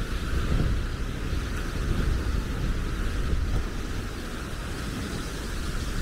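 Wind buffeting the microphone, an irregular low rumble, over a steady hiss.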